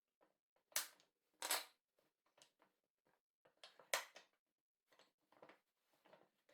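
Hard pieces of wood being handled, likely the parts of the puzzle cube, giving a few sharp clacks about a second in, again half a second later, and once more near the four-second mark, with lighter knocks and rustles between them.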